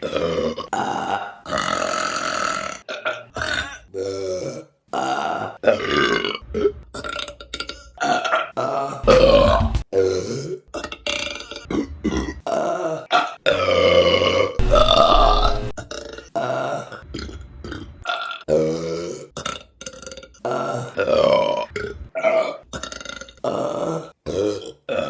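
Women burping: a long run of separate belches cut back to back, most short, a couple longer and drawn out near the middle, many with a clear, wavering pitch.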